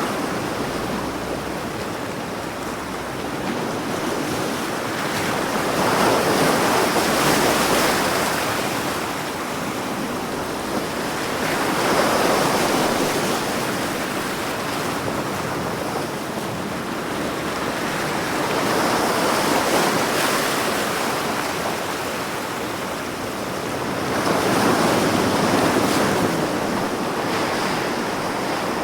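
Big ocean waves breaking on the shore: a continuous wash of surf that swells louder as each wave crashes, roughly every six seconds.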